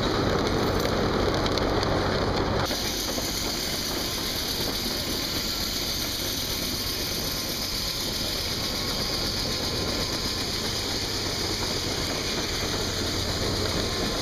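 Old-style circular-saw sawmill and its chain sawdust conveyor running: a steady mechanical noise with a low hum, stepping down a little in loudness about two and a half seconds in.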